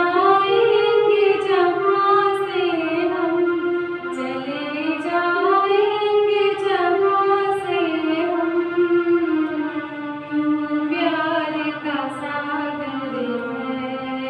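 A woman singing a slow melody in long, held notes to electronic keyboard accompaniment, with a brief breath pause about ten seconds in.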